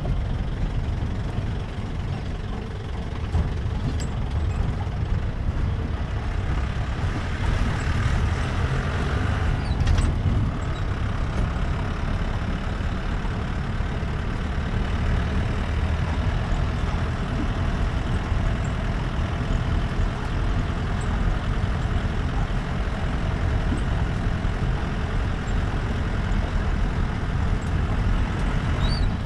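Jeep engine running steadily as it drives, a deep low rumble with road noise. There is a brief knock about ten seconds in.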